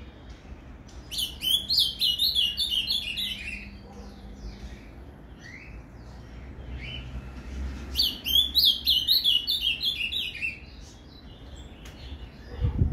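Male ultramarine grosbeak (azulão) singing two phrases of the 'Paraná' song type, each a rapid run of high, warbled notes lasting about two and a half seconds, with single chirp notes in between. A low thump near the end.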